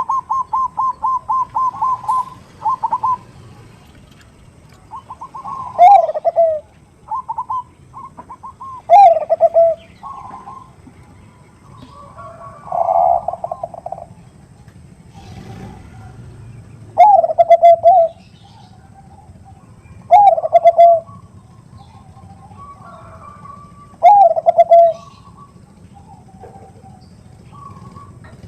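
Zebra doves (Bangkok perkutut) cooing: a quick run of short, even coos at the start, then a falling coo phrase every three or four seconds, with softer coo notes between.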